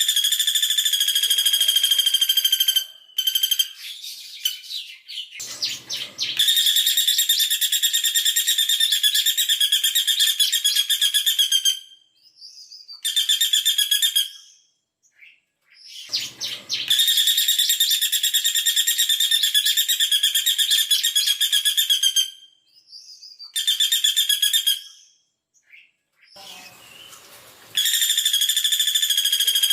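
Female caladi bawang woodpecker giving its fast, rattling trill call (the 'tembakan' or 'shot' prized by bird keepers), with very closely spaced notes. It calls in several long bursts of a few seconds each, separated by short pauses.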